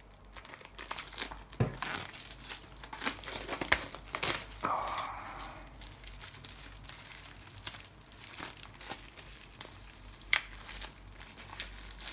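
Plastic shrink wrap being torn open and peeled off a book by hand, crinkling with many sharp crackles and a longer tearing rustle about five seconds in.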